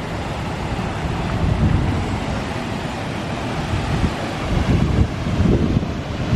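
Rushing water of the River Tees as a steady roar, with wind buffeting the microphone in uneven low gusts.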